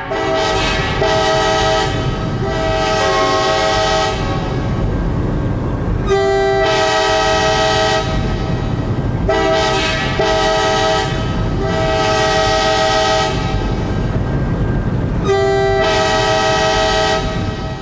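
Locomotive air horn sounding a chord of several notes in a string of long and short blasts, over a steady low rumble from the train.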